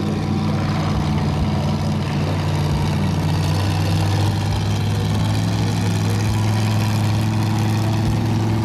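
Lifted mud truck's engine idling steadily, its note shifting a little a few seconds in.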